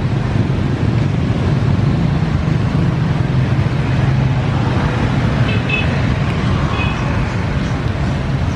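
Steady street traffic noise, a low rumble of engines and tyres, with a few brief high-pitched tones a little past halfway.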